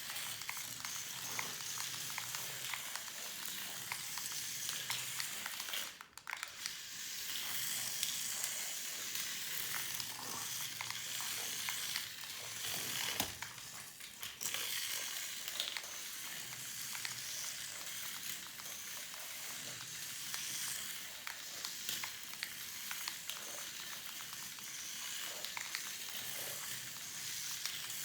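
Micro RC car's tiny electric motor and plastic gears running as it drives, giving a steady crackling hiss with many small clicks. It drops out briefly about six seconds in and again around thirteen seconds.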